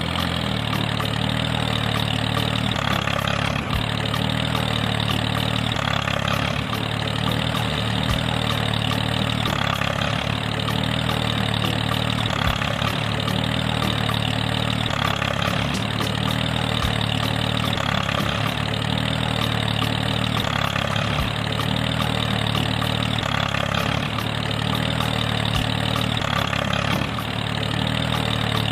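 Steady engine idling sound: a low, even hum that starts abruptly and repeats in a regular cycle about every four seconds.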